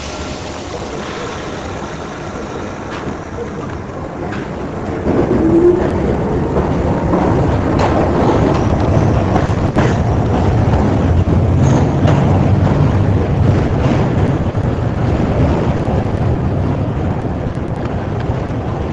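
New York City subway F train running past close by as it pulls out of an elevated station: a steady rumble of wheels on rails with scattered clicks. It grows louder about five seconds in.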